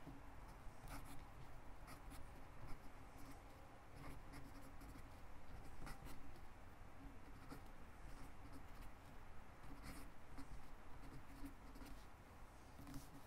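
A pen writing in cursive on lined notebook paper: a faint scratching of the tip across the paper, broken by small irregular ticks as strokes start and stop.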